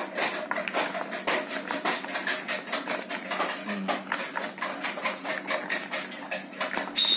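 Raw potato sticks coated in arrowroot powder being tossed by hand in a plastic bowl, a continuous rapid clatter and rustle of the sticks knocking together and against the bowl. There is a sharper click with a brief high ring near the end.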